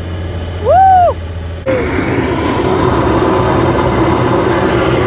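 Helicopter running on the ground, heard from inside the cabin: a low steady hum with a short rising-and-falling squeal about half a second in, then from under two seconds in a loud, steady rushing of engine and rotor.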